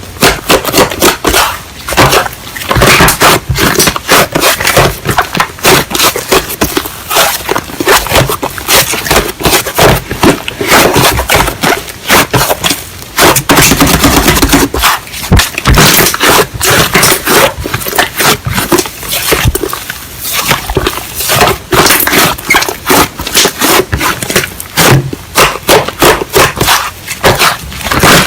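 Slime being squished, pressed and stretched by hand, giving a dense run of loud crackling and popping clicks.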